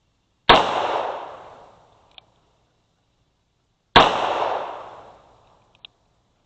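Two .357 Magnum revolver shots about three and a half seconds apart, each with a long echoing decay. A short click follows each shot, the hammer being cocked for the next.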